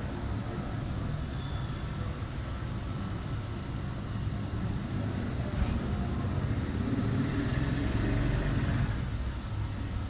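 A steady low background rumble that swells about seven seconds in and eases off again near the end, with a single sharp click a little past the middle.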